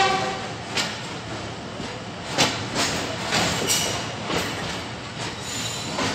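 Millat Express passenger coach rolling slowly out of the station, heard from its open doorway: a steady rumble of wheels on rail, with irregular knocks as the wheels cross rail joints and faint, brief high wheel squeals. A short ringing tone sounds right at the start.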